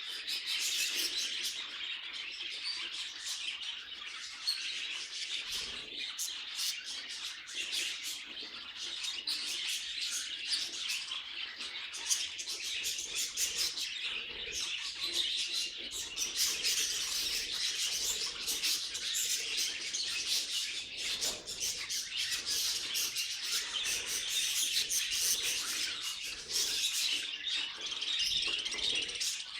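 Budgerigars chirping and chattering continuously, a dense run of rapid warbling notes.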